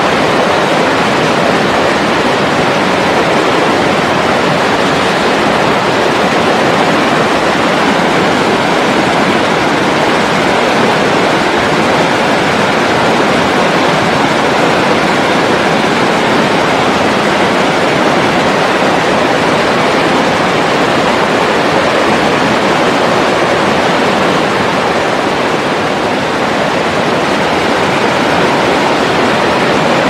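River water rushing over rapids: a loud, steady whitewater rush that does not change.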